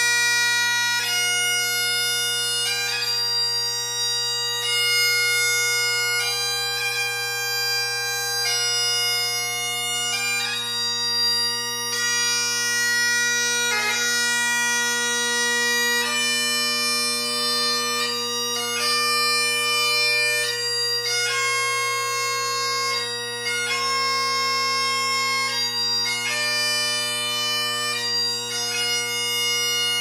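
Great Highland bagpipe playing a slow piobaireachd, the chanter moving through long held notes every second or two over the steady drones.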